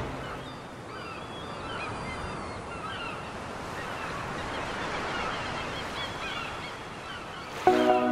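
Many birds calling, a scatter of short chirps and cries over a faint wash of wind and surf. Music with sustained chords comes in near the end.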